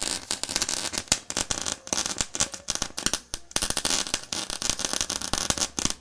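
Electric arc welder's arc crackling with rapid, irregular pops. It breaks off for a moment about three and a half seconds in, then strikes again and cuts off abruptly near the end.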